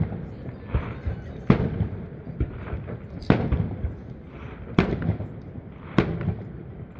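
Aerial fireworks shells bursting: four loud bangs about a second and a half apart, with fainter bangs in between. Each bang is followed by a short rumbling echo.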